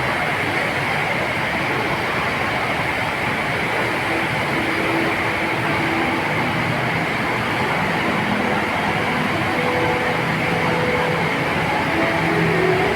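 Steady, unbroken rush of the Rain Vortex, a large indoor waterfall pouring from a roof opening down into its basin.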